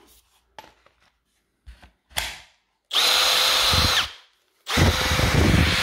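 Milwaukee M18 brushless drill running unloaded at steady speed: a burst of about a second, then a second, longer run near the end, both with a steady whine. It comes after a few light clicks as the battery is fitted, and shows that the repaired 18 V battery powers the tool.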